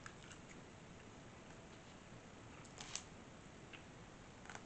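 Near silence with a few faint, short clicks of someone eating, the sharpest about three seconds in.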